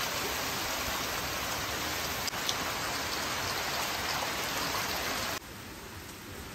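Steady rain falling, an even hiss with a few single drops ticking through it; it turns suddenly quieter about five seconds in.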